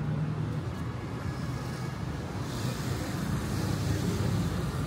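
Road traffic on a wide city avenue: a steady low rumble of passing engines, with tyre hiss swelling about halfway through as vehicles go by close.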